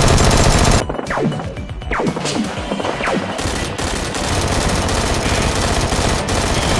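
Rapid automatic-gunfire sound effects firing continuously over background music, with a few short falling tones in the first three seconds.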